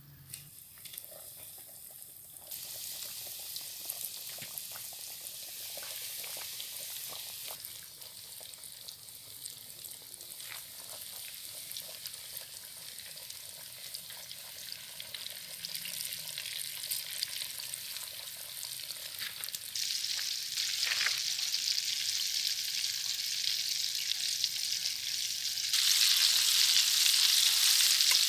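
Flour-and-egg-coated chicken pieces deep-frying in hot oil in an uruli: a steady sizzle with scattered crackles. It grows louder in steps, about two seconds in, around twenty seconds and again near the end.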